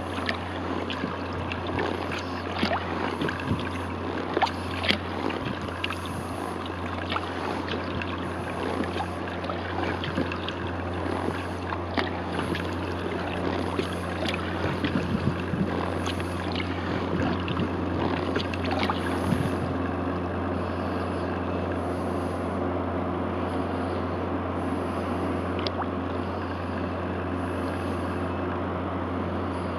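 Steady low drone of a motor boat engine running somewhere behind the kayak. Over it, the splash and drip of paddle strokes on calm water recur every couple of seconds.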